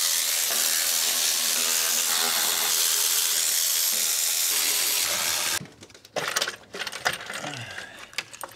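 Milwaukee cordless electric ratchet running steadily for about five and a half seconds, zipping out intake manifold bolts, then stopping suddenly. A few scattered metallic clicks and knocks follow.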